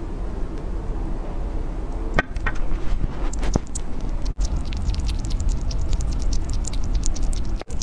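Sugar glider nibbling and chewing a dry strip of food held close to a microphone: rapid small crunching clicks that begin about two seconds in and come thick and fast after that.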